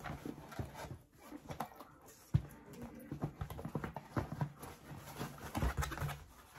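Shoes knocking and clacking on a hard surface in irregular hard taps, the sharpest about two and a half seconds in.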